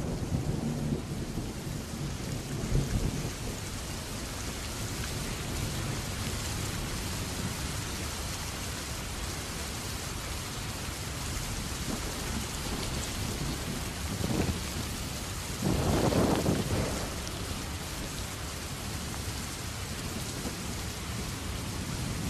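Steady rain falling over open rocky ground, with a low rumble underneath. A louder swell comes about two-thirds of the way through.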